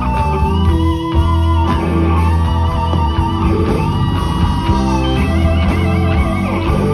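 Live electric blues guitar solo: long sustained notes, bent up and shaken with vibrato, over the band's steady bass.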